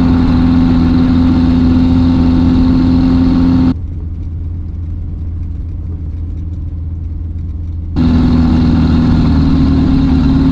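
Light sport aircraft engine running steadily, heard through the cockpit headset audio as a low drone. A louder layer with a steady hum cuts off abruptly just under four seconds in and cuts back in about eight seconds in.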